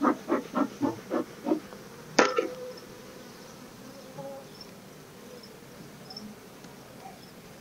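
Honeybees buzzing around an opened hive. A run of short rhythmic puffs, about four a second, fades out in the first second and a half, and a single sharp knock comes about two seconds in.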